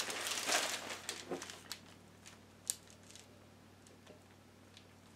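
Newspaper pages rustling and crinkling as they are turned, loudest in the first second, followed by a few soft paper ticks and taps.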